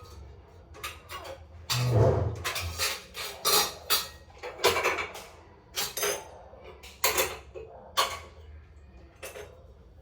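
Household items being handled: an irregular series of clinks and knocks like dishes and utensils being set down and moved, with a heavier thud about two seconds in.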